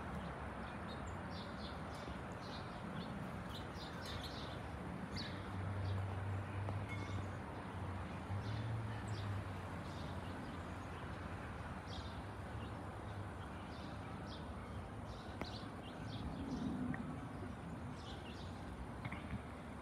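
Steady distant rumble of an Airbus A330-300 jetliner with Rolls-Royce Trent 700 engines passing high overhead at cruising altitude, with small birds chirping now and then.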